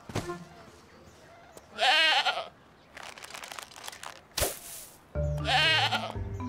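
A goat bleating twice, a quavering bleat about two seconds in and another near the end, over light background music.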